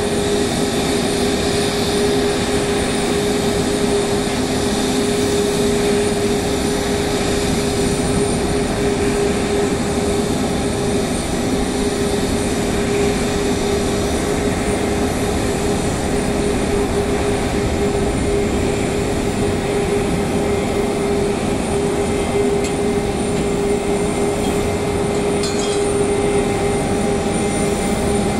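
COMAC C919 airliner taxiing, its CFM LEAP-1C turbofan engines running at low power with a steady rushing noise and a held tone.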